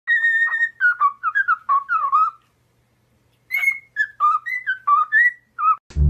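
Pet parrot whistling a tune: two phrases of clear, pitched notes that slide up and down, with a silent pause of about a second between them.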